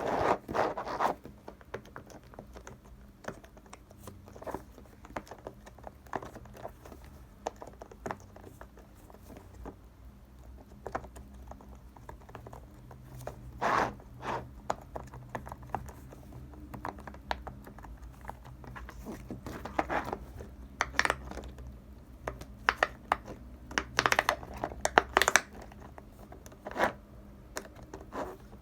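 Silicone cake-shaped pop-it fidget toy being pressed by fingers: scattered, irregular soft pops and clicks with light handling scratches. The pops come in a few louder clusters between quieter stretches.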